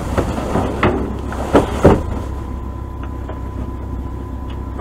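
Plastic wrap and cardboard crackling and knocking as items are handled in a dumpster: several sharp crinkles in the first two seconds, then quieter rustling. Underneath runs a steady low rumble with a faint steady high tone.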